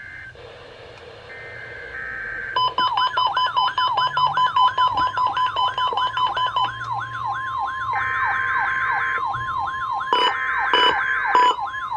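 Emergency Alert System data bursts buzzing, then about two and a half seconds in NOAA Weather Radio's steady warning alarm tone comes on, with a warbling siren-like alert swooping over it about twice a second. Buzzing data bursts and choppy beeps come back near the end.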